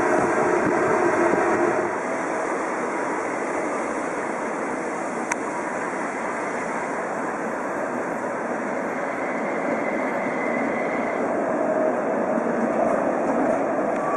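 A Toyama Chiho Railway Centram low-floor tram running. For the first two seconds it is heard from the cab, a louder running noise with a steady hum. After that it is a quieter, even rushing noise as the tram rolls past on street track, with one sharp click about five seconds in.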